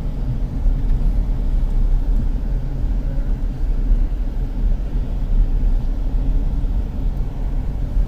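A car driving along at steady speed, heard from inside the cabin: a steady low rumble of engine and road noise.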